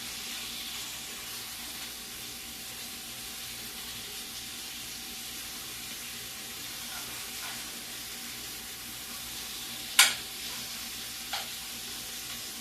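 Stir-fry vegetables and beef sizzling steadily in a hot frying pan. A sharp knock comes about ten seconds in, with a lighter one just after.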